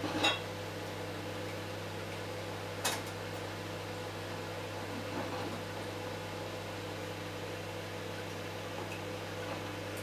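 Microwave oven running with a steady hum, with two sharp clicks: one right at the start and one about three seconds in.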